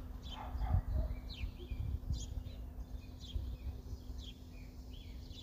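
A small bird chirping outdoors: short, high, falling chirps repeated about once a second, over a steady low rumble.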